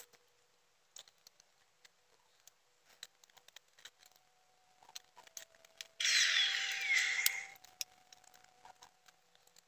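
Small plastic clicks and taps from a toy pony figure being handled and fitted into its plastic wing accessory, with a louder rustle of plastic lasting about a second and a half about six seconds in.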